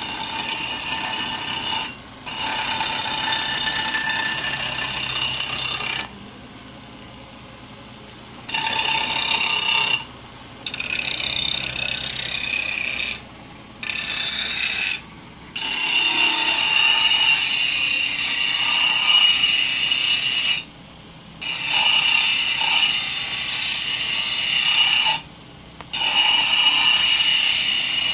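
Motor-driven grinding stone wheel grinding a steel blade: a harsh grinding hiss with a steady high whine. It cuts off and starts again several times as the blade is lifted and pressed back.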